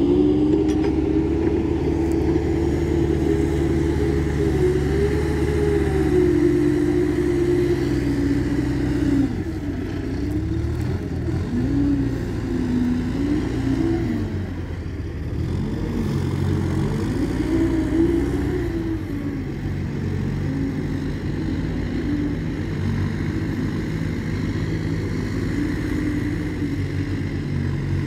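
Diesel engine of a Manitou MLT741-120 LSU telehandler running and revving up and down again and again as it works the loader arm and drives while loading manure, with a steady low engine drone underneath.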